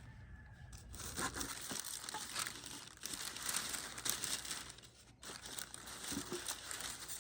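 Packing material being pulled off and crumpled while the coop's parts are unpacked: a dense crinkling rustle that starts about a second in and pauses briefly near five seconds.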